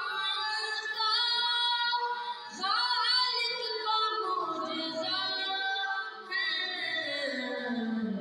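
A boy's solo voice sings an Urdu devotional kalaam unaccompanied, in long, gliding melodic phrases. It breaks briefly for breath about two and a half seconds in and again near six seconds.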